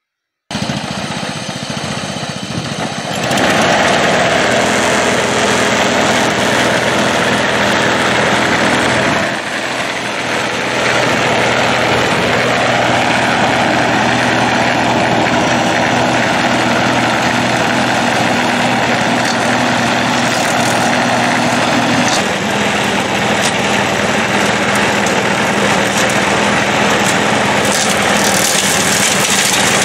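A push-mower engine on a homemade brush-hog deck and a Wheel Horse garden tractor's engine running together at a steady working speed while mowing through tall grass and brush. The sound fades in at the start, grows louder about three seconds in, and dips briefly near ten seconds.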